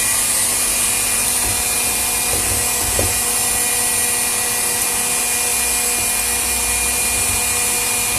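Electric stand mixer running steadily at speed, its whisk beating plant-based egg white into meringue, a constant motor whir with a steady hum.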